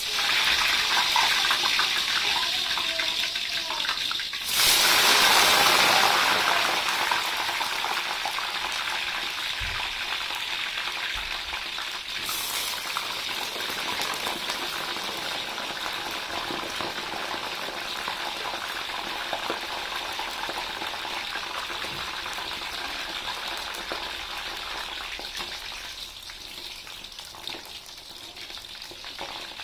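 Eggplant chunks sizzling as they are deep-fried in hot oil in a wok. The hiss starts suddenly as the first piece goes in, swells to its loudest about four and a half seconds in as more pieces are added, then settles into a steady frying sizzle that slowly eases.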